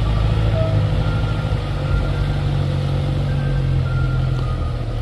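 A heavy vehicle's engine running steadily at low speed, with a small change in its pitch about two seconds in.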